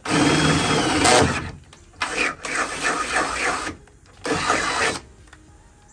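Cordless drill running as its twist bit bores into the sheet-steel rear body panel of a Mercedes W210 E-Class, in three bursts: about a second, then about a second and a half, then about half a second, with short pauses between.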